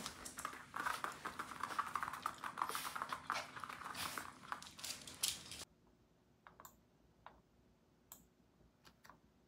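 A small poodle-type dog's claws clicking and pattering quickly on the floor as it runs about, with some rustling. About two-thirds of the way through this stops abruptly, and a few sparse laptop keyboard clicks follow.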